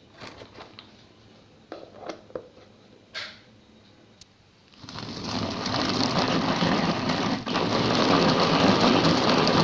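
Electric mini food chopper running steadily, its blades chopping onion and green pepper fine in a plastic bowl. It starts about five seconds in, after a few light plastic clicks as the lid is fitted.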